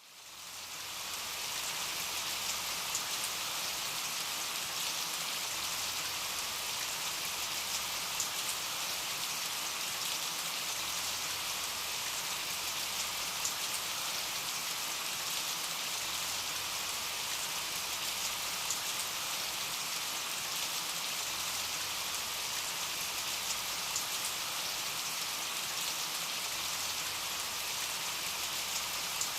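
Steady rain falling on surfaces, an even hiss with scattered individual drop ticks, fading in over the first second or two.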